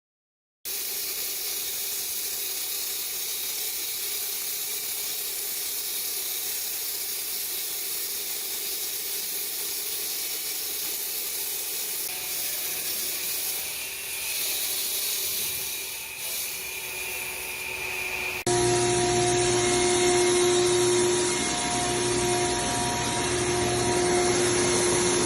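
Small electric concrete saw running and cutting into a concrete floor slab: a steady high hiss with a faint motor hum. About 18 seconds in the sound jumps louder, with a stronger steady hum.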